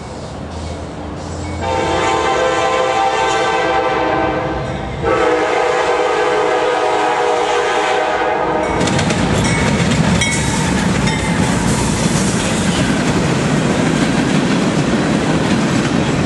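Freight diesel locomotive air horn sounding two long blasts for a grade crossing, the first starting about two seconds in and the second just after it, ending as the locomotives reach the crossing. Then the locomotives' engines and the wheels of a loaded freight train rumble and clatter past close by.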